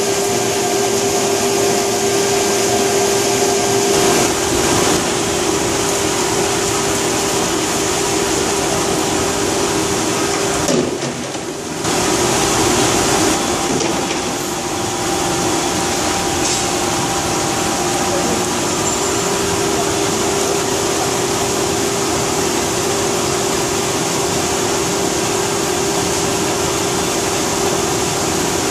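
Olney GP dry bean washer running: a steady rush of water pouring over the beans, with a constant motor hum from the machine. It dips briefly about eleven seconds in.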